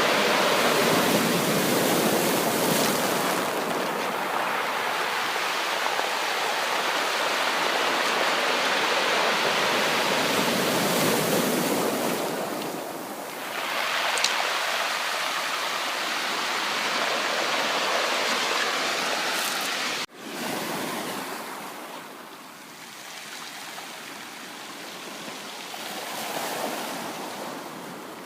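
Sea waves washing onto a shore in a steady rush of surf. It dips briefly about halfway, then cuts off abruptly about two-thirds through and carries on quieter, swelling and easing.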